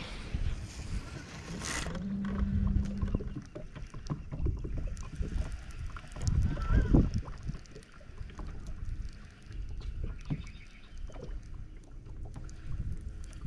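Low wind rumble on the microphone and water around a bass boat moving slowly through shallow water, with a short steady hum about two seconds in and scattered small clicks and knocks.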